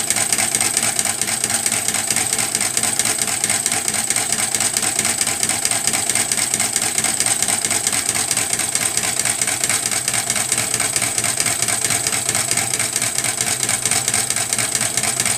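Mini sewing machine's small electric motor running steadily with a high whine, winding thread onto the bobbin.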